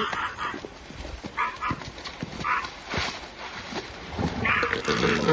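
Elephant seals calling on the beach: short, harsh, rasping bursts, three of them about a second apart, with a few dull knocks in between.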